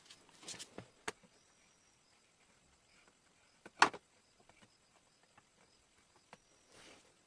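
Faint handling sounds of packaging and small objects: brief rustles and light clicks, with one sharp click about four seconds in.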